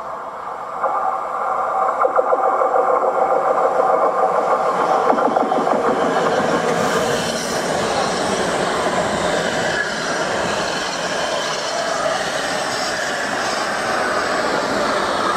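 Oslo metro MX3000 train approaching on curved track and running into the station. The wheel and running noise rises sharply about a second in and stays loud and rattling, with a high whine coming in over the later part as the train slows at the platform.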